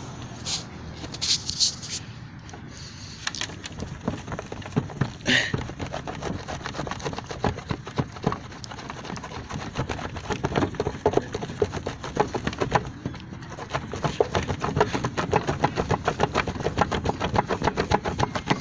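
Vigorous hand buffing of a polished polycarbonate headlight lens: fast, rhythmic back-and-forth rubbing strokes that grow stronger in the second half, with a few sharp clicks near the start.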